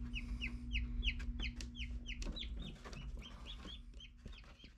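Newly hatched chicks peeping inside an incubator: short, high, downward-sliding peeps, about three or four a second, over a steady low hum, fading out near the end.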